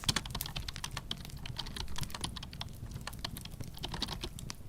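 Fast, steady typing on a computer keyboard, a quick run of key clicks.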